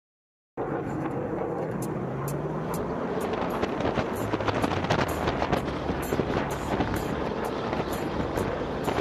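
Polaris Slingshot's engine running while riding, with wind rushing and crackling over the camera microphone; the sound cuts in abruptly about half a second in.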